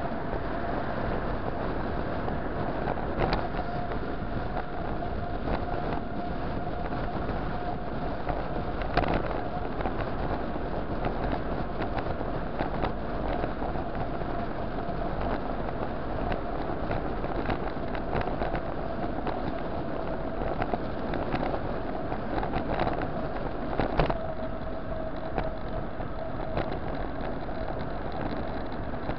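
Wind and road rumble on a camera mounted on a bicycle riding fast along a city street, a steady rushing noise with a faint steady hum running through it. A few sharp knocks come from bumps in the road, the loudest about nine seconds in and near the end.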